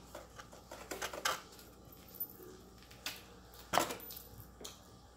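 Chewing and mouth smacking while eating a Philly cheesesteak sandwich: a few scattered, irregular wet clicks, the sharpest a little under four seconds in.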